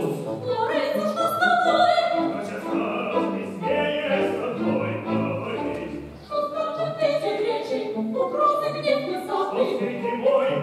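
Live opera: singers accompanied by orchestra. The music dips briefly about six seconds in, then picks up again.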